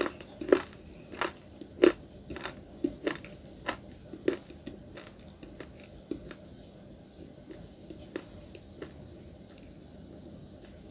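A person crunching and chewing a piece of dry edible clay close to the mouth: sharp crisp crunches about every half second for the first four seconds or so, thinning out to occasional softer crunches.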